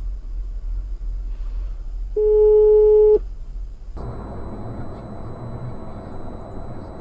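Low in-car road rumble recorded by a dashcam. About two seconds in, a loud steady electronic beep sounds for about a second. Then the rumble gives way to a denser road noise from a second dashcam, with a thin, steady high whine.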